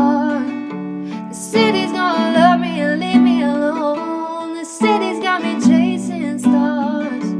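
Acoustic guitar strummed under a woman's voice singing a slow, held melody.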